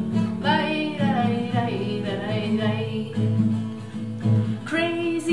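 Acoustic guitar strummed in a steady rhythm, with a woman singing over it for the first couple of seconds and again near the end.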